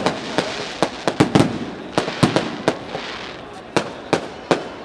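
Fireworks going off: a quick irregular series of sharp bangs and pops, about a dozen in under five seconds, over a continuous hissing crackle.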